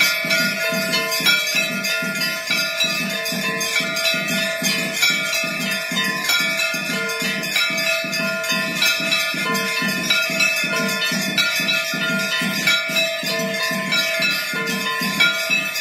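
Temple aarti bells and percussion struck in a fast, even rhythm, about three strokes a second, with the bells ringing on between strokes.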